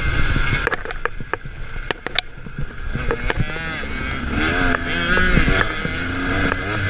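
KTM 300 two-stroke dirt bike engine running under way, heard from its own handlebars with wind noise. A run of sharp knocks comes through the first couple of seconds. From about halfway the engine revs up and down repeatedly with the throttle.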